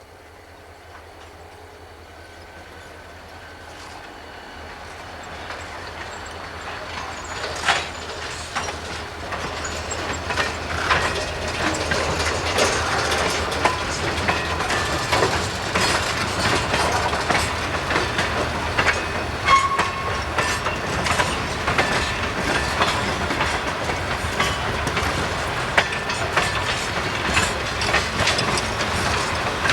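A train approaching, growing steadily louder over the first ten seconds or so, then rolling past close by with a dense, steady clicking of wheels over rail joints.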